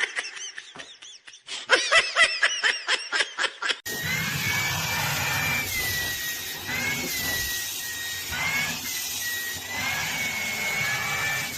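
Quick run of high-pitched squeaks, then, after a sudden cut about four seconds in, a small motor running with a steady whirr and a whine that wavers in pitch.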